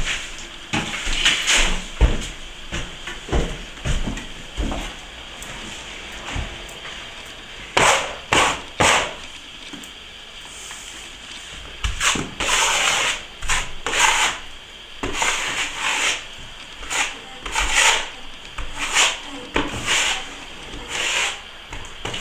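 Steel plastering trowel scraping over a fresh finish coat of plaster in repeated short strokes, polishing the surface, with a brief pause in the middle.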